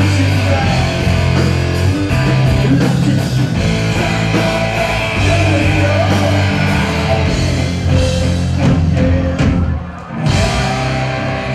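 Live rock band playing loud, with electric guitar, drums, bass and singing. The music briefly drops out about ten seconds in, then comes back in.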